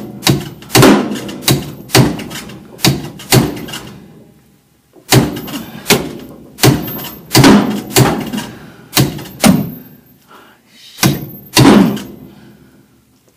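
A run of sharp knocks with a short ringing tail, about one to two a second, in three groups: five or so, then nine or so after a pause, then two near the end.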